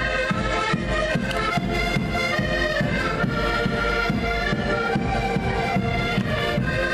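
A group of accordions playing a traditional Portuguese folk tune together, with sustained chords over a steady rhythmic bass.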